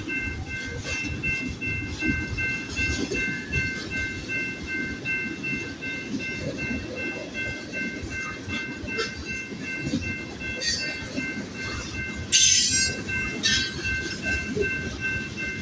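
Freight train cars rolling through a grade crossing with a steady rumble and clatter of wheels on the rails, while the crossing signal's bell rings in an even, pulsing ring. About twelve seconds in there is a sudden loud rushing noise lasting about half a second.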